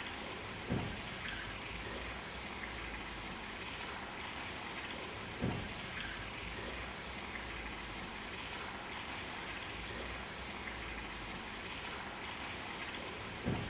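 A steady rushing hiss, broken by three dull low thuds: about a second in, about five and a half seconds in, and near the end.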